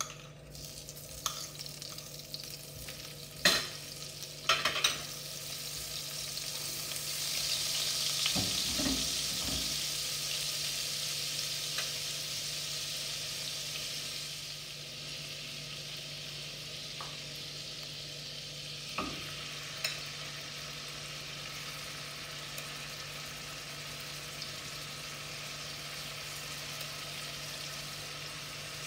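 Butter melting and sizzling in hot coconut oil in a frying pan: a hiss that swells a few seconds in, then settles to a steady, quieter fizz. A few sharp knocks in the first five seconds as the butter is scraped in.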